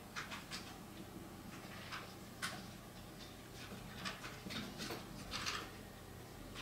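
Brush pen tip stroking across paper: short, faint scratches at irregular intervals, a dozen or so, the sharpest about two and a half seconds in.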